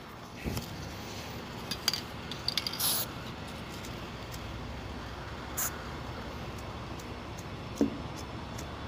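A glove being pulled on and a spray-paint can handled: a few light clicks and short hisses, the clearest about three seconds in, over a steady low background rumble.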